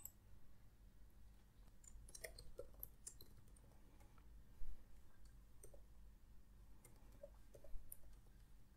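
Faint computer keyboard keystrokes and mouse clicks, sparse and scattered, with a quick run of keystrokes about two to three seconds in, over a low steady hum.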